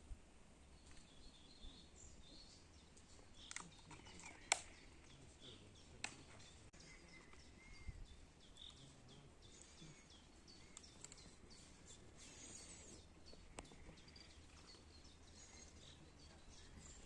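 Quiet open-air ambience with faint, scattered bird chirps and a few light clicks, the sharpest about four and a half seconds in.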